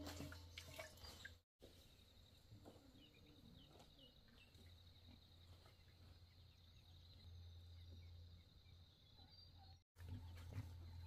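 Near silence: faint outdoor ambience with a few soft chirps and a faint steady high tone. Brief light splashing of water in a basin before a cut, about a second and a half in.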